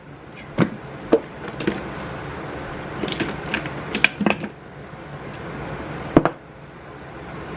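Hand tools and metal parts clinking and knocking against each other during flywheel removal on a Yamaha Blaster engine: a dozen or so sharp metallic taps and clicks at uneven intervals, the sharpest about six seconds in, over a steady background hiss.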